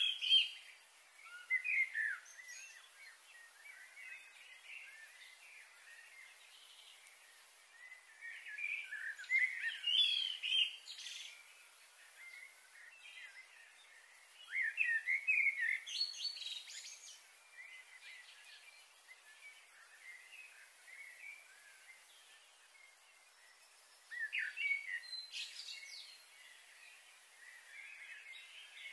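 Wild birds chirping and twittering in short clusters a few seconds apart, over a steady outdoor hiss.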